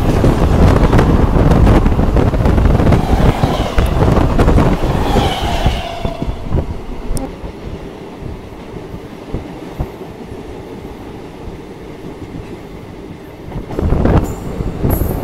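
Moving Indian Railways passenger train heard from an open coach door: loud wheel-on-rail rumble and clatter while a second train runs alongside, with a brief high squeal about five seconds in. After about six seconds it drops to a quieter steady rumble, then turns loud again near the end.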